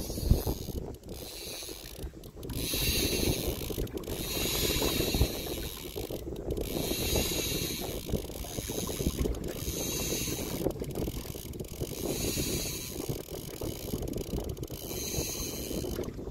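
Shimano spinning reel ratcheting in repeated spurts about a second long while a hooked fish is played, over a low rumble of wind and water.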